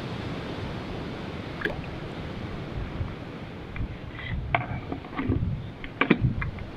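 Small splashes and drips of water with a few sharp handling clicks, heaviest about six seconds in, over a steady rush of wind on the microphone.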